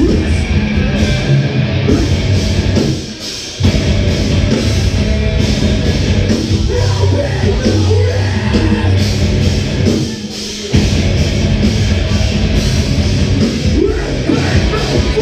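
Live rock band playing a loud song. The band drops out for a moment twice, about three seconds in and again about ten seconds in.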